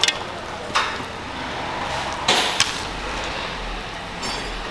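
Plastic clips being pried and snapped off the inside of a plastic car bumper cover: about four sharp snaps and clicks, the loudest a little past two seconds in.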